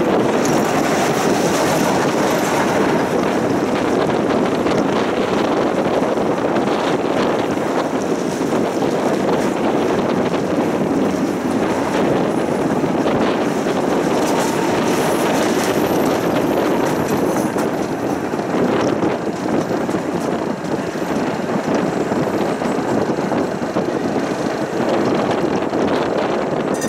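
Electric tram running along its track, heard from inside the car: a steady rumble of wheels on rails with occasional clicks.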